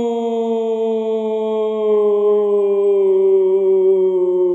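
A man's voice holding one long sung note that slowly slides down in pitch.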